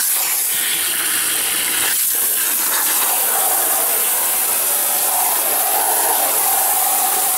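Water from a garden hose spray nozzle running into a plastic drum onto charcoal in the bottom, a steady hiss and splash as the drum fills.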